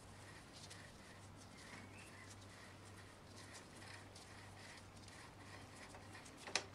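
Faint scraping and ticking of a flat-blade screwdriver turning in the small threaded cap over the pad pin of a Yamaha FZ6 rear brake caliper, with one sharp click near the end. A low steady hum runs underneath.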